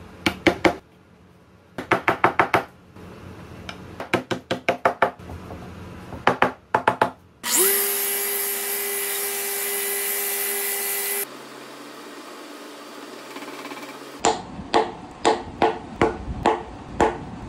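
A wooden mallet taps dark wooden stitch keys into a walnut slab, in quick runs of four to six sharp taps. About seven and a half seconds in, a random orbital sander starts with a rising whine, runs steadily for about four seconds and stops abruptly. Near the end comes another series of about eight sharp strikes.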